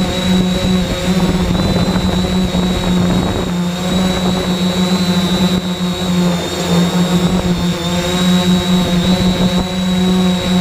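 3DR X8 octocopter's eight motors and propellers buzzing steadily in flight, heard from its onboard camera: a strong drone whose pitch wavers slightly, with a thin high whine above it and a rushing noise underneath.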